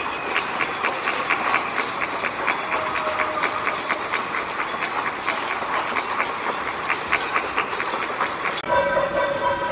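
A crowd of neighbours clapping from their windows, many hands in fast, even applause. Near the end the clapping thins and a held, horn-like pitched tone comes in.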